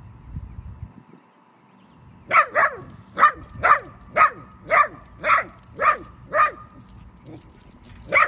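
Young dog barking in a quick series: after about two seconds of quiet, nine sharp barks about two a second, each dropping in pitch, and one more at the very end.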